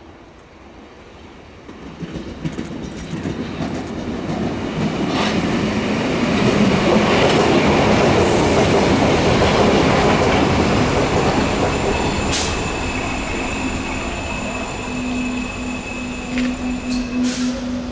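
Berlin U-Bahn F74/F76-type train passing on the rails, its running noise building over the first few seconds to a loud rumble with wheel clatter. Over the last several seconds a steady hum and thin high-pitched wheel squeal sound above it.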